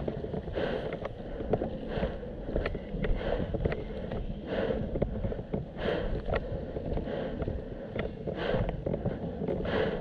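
A person breathing hard and evenly, one breath a little more than a second apart, while walking, with light footsteps on dry grass and wind rumble on the microphone.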